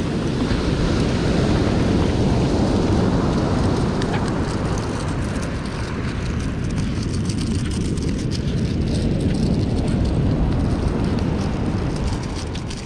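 Wind rumbling on the microphone over the wash of breaking surf, a steady low noise, with faint clicks in the second half.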